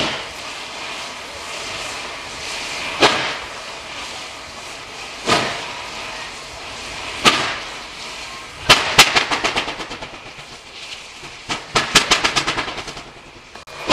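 Steam locomotive 3801, a NSWGR C38 class 4-6-2, working hard at walking pace up a grade: single sharp exhaust beats a couple of seconds apart, then about nine seconds in the driving wheels slip and the exhaust breaks into a rapid run of beats that dies away, and it slips again near the end. The slipping comes from wet, greasy rail that the sanding cannot cope with while the engine runs tender first.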